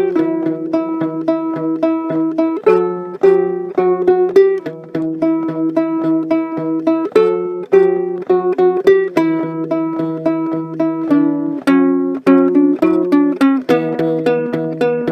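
Ukulele music: an instrumental passage of quickly plucked notes and chords, with no singing.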